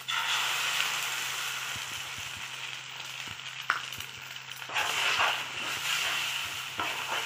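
Beaten eggs poured into a hot steel pan of fried fish roe, sizzling at once and slowly fading. A single sharp click comes about three and a half seconds in, then the sizzle rises again as a steel spoon stirs the egg through the roe.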